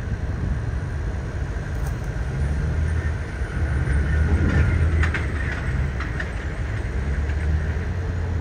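Freight cars of a long train rolling past: a steady low rumble of wheels on rail, with a cluster of metallic clanks and a brief squeal about halfway through.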